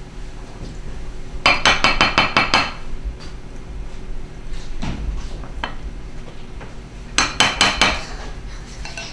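A metal kitchen utensil rapping quickly and repeatedly on a dish, in two bursts of about a second each, a few seconds apart. It is the sound of batter being knocked off a spoon or spatula while mixing brownie batter.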